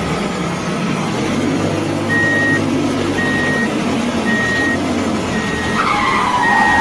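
A vehicle's engine running with a reversing alarm beeping about once a second, starting about two seconds in. Near the end a louder wavering tone joins it, falling in pitch.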